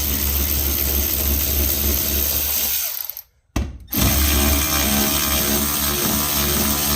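Cordless Milwaukee power tool running on the seat and seatbelt bolts, backing them out. It runs steadily, stops about three seconds in, then runs again about a second later.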